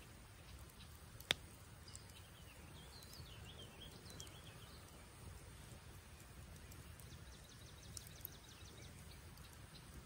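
Faint wood campfire burning, with one sharp crackling pop a little over a second in and a few smaller crackles later, over a low steady background hiss. A small bird chirps briefly a few seconds in.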